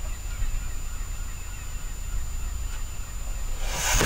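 Steady low rumble with faint wavering bird calls, then a loud rustling burst near the end as a hand brushes the camera.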